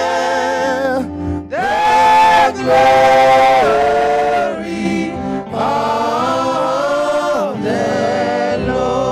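A woman singing a slow gospel worship song into a microphone, holding long notes with vibrato in phrases of one to two seconds, over steady backing music; the loudest, highest phrase comes about two seconds in.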